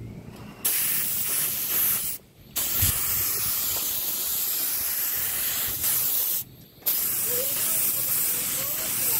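Gravity-feed compressed-air spray gun spraying paint onto a bicycle frame: a loud steady hiss of air and paint mist. It comes in three passes, with short breaks about two seconds in and again about six and a half seconds in, where the trigger is let go.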